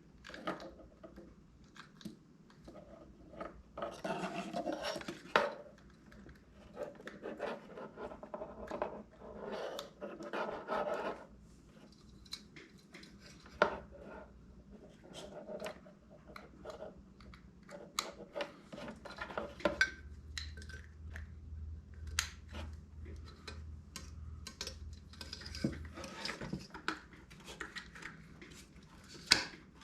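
Small metal parts and hand tools clinking, scraping and rubbing in irregular bursts, with occasional sharp clicks, while a Vevor diesel heater is put back together.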